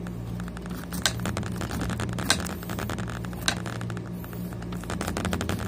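Small paring knife cutting into a peeled pineapple to dig out the eyes, with three sharp clicks about a second apart, over a steady low hum.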